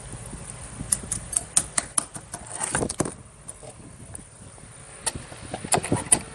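Jiggly slime squeezed and pressed by hand, making irregular sticky clicks and pops, with a longer squelch about three seconds in.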